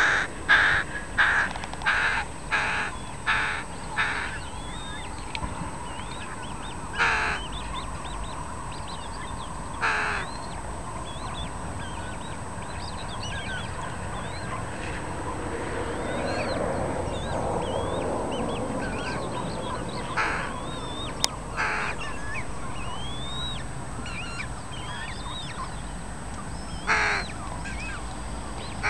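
Loud, harsh bird calls: a quick run of about seven in the first four seconds, then single calls every few seconds. Faint twittering of small songbirds runs underneath.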